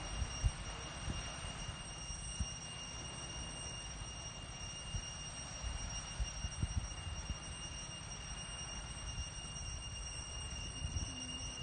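Wind rumbling on the microphone, with a few short low buffets, over an even wash and a thin, steady high-pitched whine.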